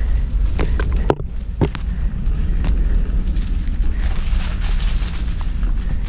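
Wind rumbling on the microphone of an action camera riding a mountain bike along a dirt trail, with the bike rattling over the ground and a few sharp knocks about a second in.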